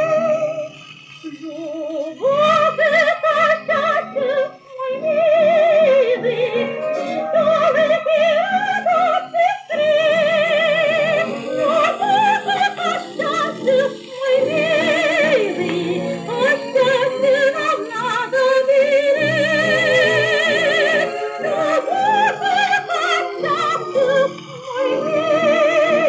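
A woman singing with wide vibrato over a dance orchestra, played from an old shellac 78 rpm record through a radiogram's loudspeaker; the old recording has no deep bass.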